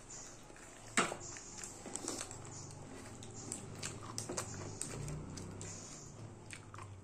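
Eating sounds of people eating fried fritters with their hands: biting and chewing with scattered small clicks, the sharpest one about a second in.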